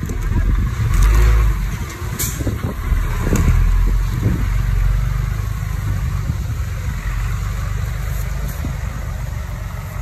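Diesel engine of a Komatsu D20P small crawler bulldozer working, a steady heavy rumble that swells louder around one second and again around three to four seconds in, with a brief sharp knock about two seconds in.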